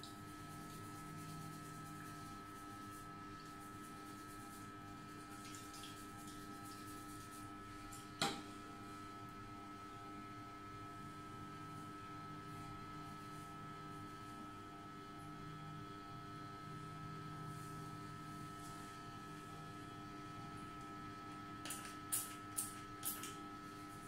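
Steady electrical hum made of several held tones. A single sharp click comes about a third of the way in, and a quick run of three or four clicks near the end.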